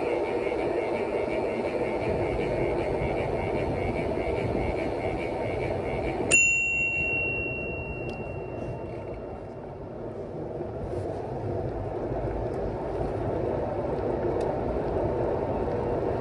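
A bicycle bell is struck once about six seconds in and rings out clearly for a few seconds. Under it runs a steady rushing noise of riding.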